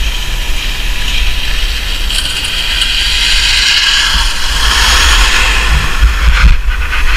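Continuous rush of a rider sliding down groomed snow, with wind rumbling on the helmet-mounted camera's microphone. It grows louder toward the middle, and there are a few low thumps near the end.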